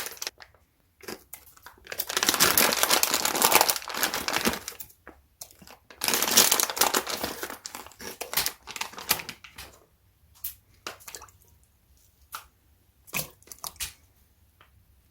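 Crinkly material, such as paper or plastic wrapping, being crumpled and handled in two long spells of dense crackling, followed by a few short, separate rustles and clicks.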